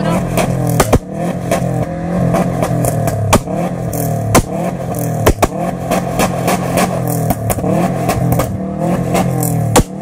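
Subaru Impreza WRX STI's turbocharged flat-four held at high revs through its exhaust for a sound-level test, a steady engine note broken by frequent sharp cracks, dipping briefly near the end.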